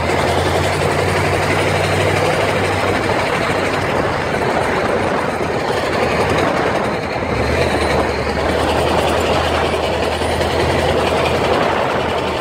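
Front end of a 1996 Jeep Grand Cherokee ZJ making a loud, continuous noise while driving, with a low hum underneath that drops away about two seconds in and comes back lower around seven and a half seconds. The noise sounds horrible, and the owner thinks it comes from a bad front pinion bearing or front differential.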